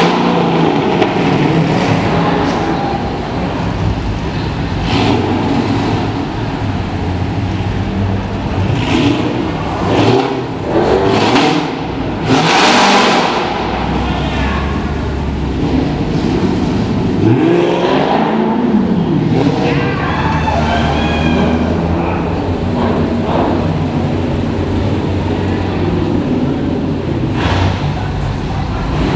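Dodge Charger muscle cars rumbling and revving as they drive off one after another inside a concrete parking garage; a sharp rev about twelve seconds in is the loudest moment.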